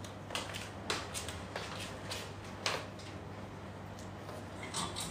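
Light footsteps of slide sandals on a tiled floor, with the clicks of plastic clothes hangers being carried, as a series of short taps about half a second apart and a small cluster near the end. A steady low hum runs underneath.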